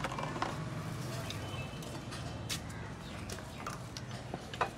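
Engine oil pouring from a plastic jug into a funnel in the engine's oil filler, over a low steady hum with a few faint clicks.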